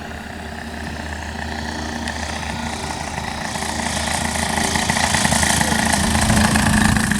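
Engine of a radio-controlled model airplane running steadily, growing louder over the seconds as it comes nearer.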